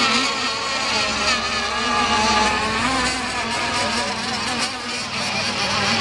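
Radio-controlled model unlimited hydroplanes racing, their small engines whining at high revs. Several pitches waver and shift as the boats run the course.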